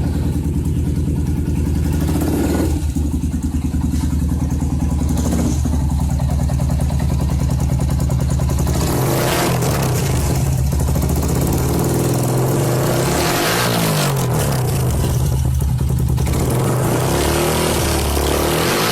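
Yamaha Y15ZR motorcycle's single-cylinder four-stroke engine running steadily at first, then revved up and down several times in the second half.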